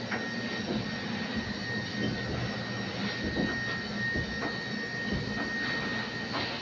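Steady whirring drone of commercial kitchen machinery, with a constant high whine over a low hum and a few light knocks and clicks scattered through it.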